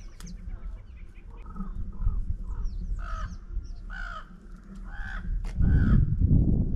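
A bird giving a series of harsh, crow-like caws, roughly one a second. A loud low rumble covers the last second or so.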